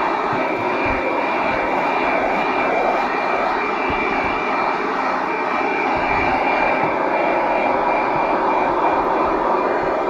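Piranha PVC-4004 12-volt handheld car vacuum cleaner running steadily: a high motor whine over rushing air as its crevice nozzle sucks along the gap in a fabric car seat.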